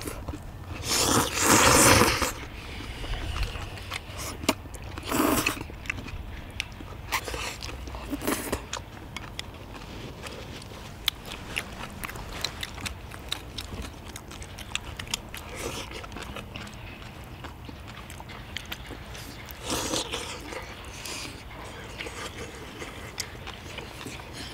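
Several people eating spicy stir-fried chicken and udon noodles: noodles slurped in a loud burst about a second in and several more times, with chewing and small clicks of chopsticks against bowls.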